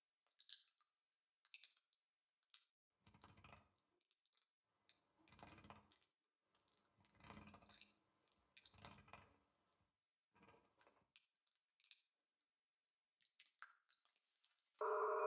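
Faint scattered clicks and short rustling handling noises against near silence, then about a second before the end a loud, steady electronic tone cuts in abruptly.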